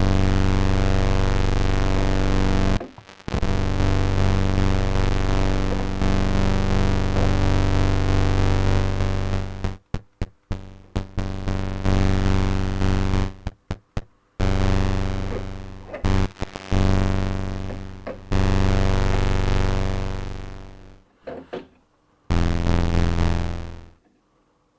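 ARP Avatar synthesizer playing low held notes through its ADSR-controlled amplifier. Several notes stop abruptly and some come as short stabs, while a couple fade out over a second or two near the end. The ADSR release is only partly working and still needs repair.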